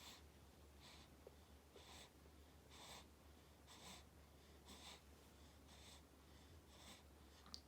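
Faint, soft breathing of a one-month-old baby, a hissy breath about once a second, with a brief high squeak near the end.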